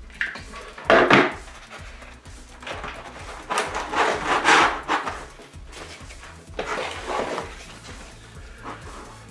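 Paper being handled and rubbed down in three bursts of rustling, as paper mache strips are laid on a cardboard form, over light background music.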